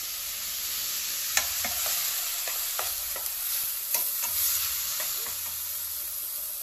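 Grated onion sizzling as it fries in hot oil in a pan while it is stirred, with a couple of sharp clicks of the stirring utensil against the pan. The onion is being cooked only lightly, not browned, as the base of a kofta gravy.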